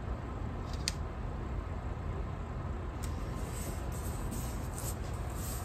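Steady low room hum with faint handling of a paper sticker on a planner page: a light click about a second in, then soft rustles as the sticker is pressed and smoothed down.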